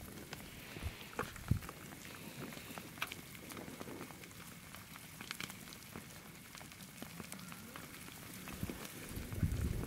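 Slow-moving lava flow, its cooling crust making faint, scattered crackles and clicks like light rain. A louder low rumble swells near the end.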